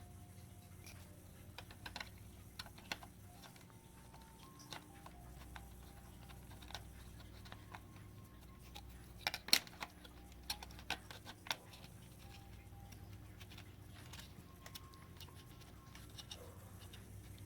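Scattered light clicks and taps of a laptop and its parts being handled during a RAM upgrade, with a short run of sharper clicks about nine to eleven seconds in.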